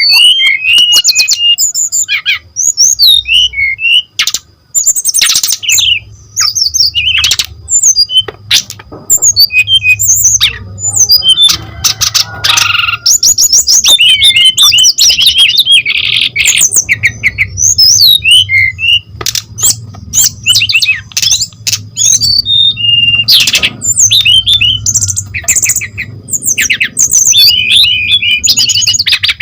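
Brown-chested jungle flycatcher (sikatan rimba dada coklat) singing without pause: a fast, varied run of chirps, trills and whistled notes, broken by sharp clicks.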